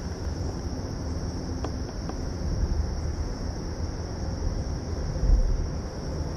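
Steady high-pitched insect chorus over a low rumble, with a couple of faint clicks about a second and a half in.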